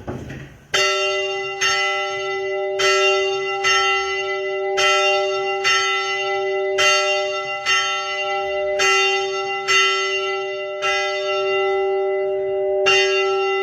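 Church tower bell rung by its rope and wheel, the swinging bell struck by its clapper about once a second. Each stroke rings on into the next, and one stroke is skipped near the end.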